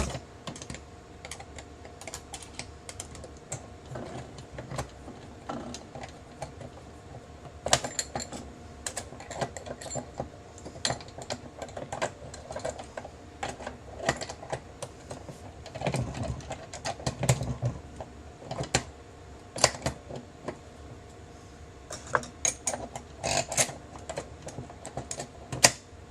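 Irregular small metallic clicks and taps of parts and a small screwdriver being worked on a MEC 600 shotshell reloading press while the final crimp stage is threaded and fitted into place, with a few duller knocks partway through.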